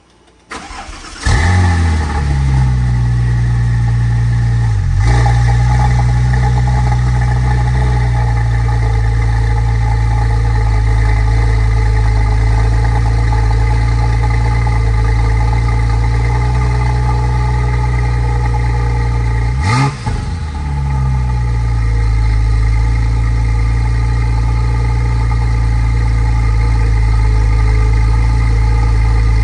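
Gemballa GTR's Porsche flat-six cold-starting: a short crank on the starter, then it catches about a second in and flares up loud before settling into a steady idle. The idle dips briefly around five seconds, and a single quick throttle blip near twenty seconds rises and falls back to idle.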